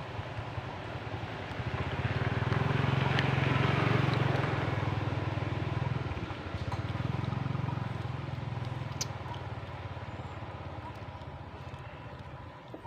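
Motorbike engine passing: a low steady hum that swells about two seconds in, is loudest around four seconds, and fades away over the following several seconds.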